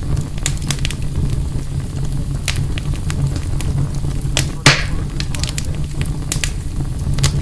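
Large campfire burning with flames, crackling with irregular sharp pops over a steady low rumble; the loudest pop comes about halfway through.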